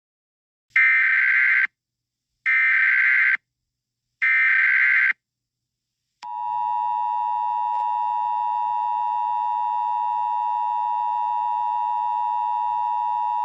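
Emergency Alert System tones: three separate bursts of about a second each of shrill, warbling SAME header data, then, from about six seconds in, the steady two-tone EAS attention signal.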